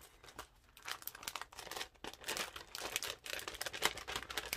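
Clear plastic packaging bag crinkling as hands handle and open it, in irregular crackles that grow busier about two seconds in.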